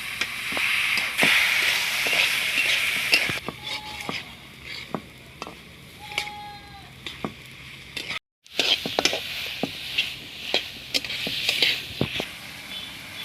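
Food frying and sizzling in a hot pan while it is stirred, with a spatula tapping and scraping against the pan. The sizzle is loud for the first few seconds, then quieter under frequent taps, with a brief cut just after 8 seconds before the sizzling and stirring pick up again.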